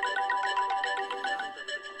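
A Samsung Galaxy Tab 2 stock ringtone playing: a quick run of repeated electronic notes over held tones. It dips briefly near the end, then the phrase starts again as the tone loops.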